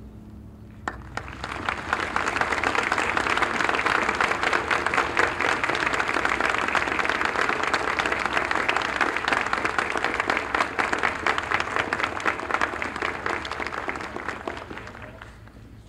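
Audience applauding. The clapping starts about a second in, holds steady, and dies away near the end.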